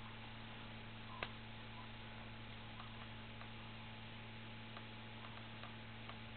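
One sharp click about a second in, then a few faint ticks, as a laptop LCD panel's metal frame is handled and lined up against its hinge brackets, over a steady electrical hum.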